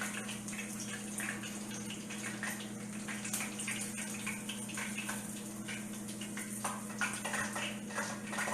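Hot frying oil sizzling and crackling around pieces of beer-battered chicken, a dense patter of small pops, over a steady low hum.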